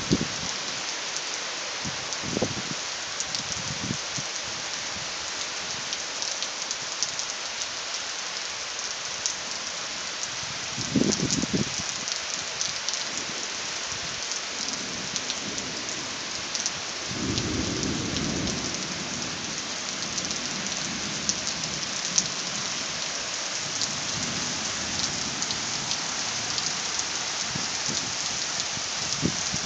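Heavy rain falling steadily, with thunder rumbling briefly about 11 seconds in and again in a longer roll a few seconds later.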